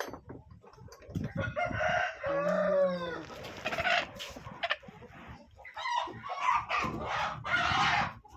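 Desi chickens calling: a rooster gives one long crow about a second in, and a run of shorter crowing and clucking calls follows near the end.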